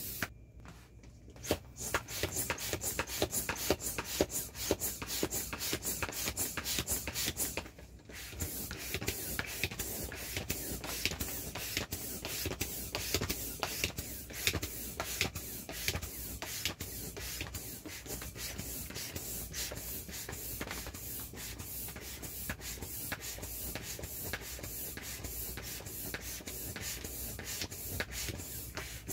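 An air pump blowing air through a hose into an inflatable vinyl ATV, with a steady rushing hiss and the vinyl rustling as it fills. The sound drops away briefly twice, near the start and about eight seconds in.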